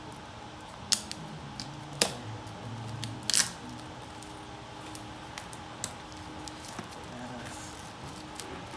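Scattered sharp clicks and taps of fingers handling a plastic-wrapped cardboard smartwatch box, the loudest a short scrape about three seconds in. A steady faint hum runs underneath.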